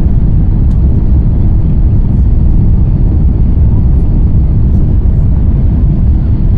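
Loud, steady low rumble inside the economy cabin of an Airbus A350-900 as it departs: its Rolls-Royce Trent XWB engines and the airflow around the fuselage.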